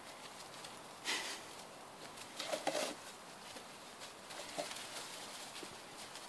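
Springer Spaniel puppies rustling through the fern fronds and dry leaf litter of a garden bed, in short bursts about a second in and again around two and a half seconds, with lighter patter of small paws on the soil.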